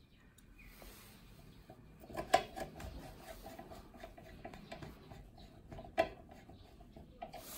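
Small clicks and taps of hands and a small screwdriver working the green plug-in screw terminal blocks of a CNC controller. There are two sharper clicks, about two seconds in and again near six seconds, with a faint, fast, even ticking between them.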